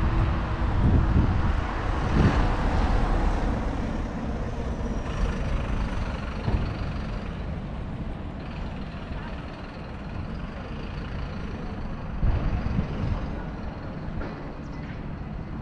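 Road traffic passing on a city street, a steady rush of vehicle noise that swells louder about two seconds in and again about twelve seconds in.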